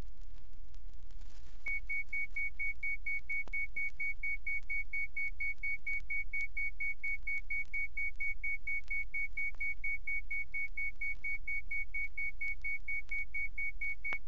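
Rapid electronic beeping: one high tone pulsing about five times a second, starting about a second and a half in, over a steady low mains hum.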